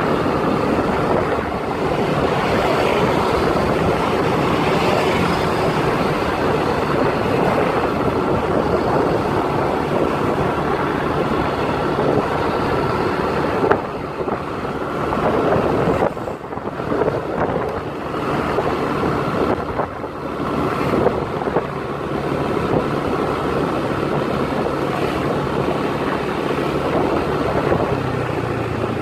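A motor vehicle's engine running steadily with wind noise on the microphone. The level dips briefly several times in the middle.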